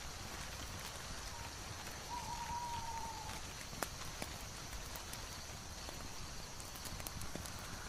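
Layered ambience soundscape: a steady hiss with scattered sharp ticks and crackles, and a short, slightly falling whistle-like tone about two seconds in.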